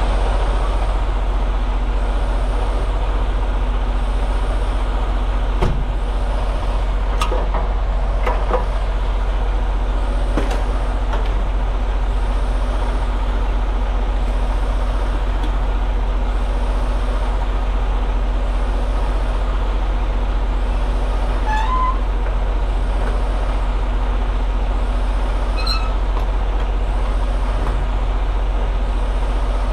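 Steady road and engine rumble inside a moving vehicle, heaviest in the deep low end, with a few brief clicks and a couple of faint high chirps.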